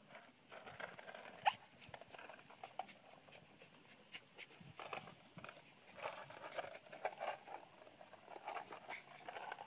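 Shih Tzu dog whining in short, irregular sounds, with one louder, sharper sound about a second and a half in.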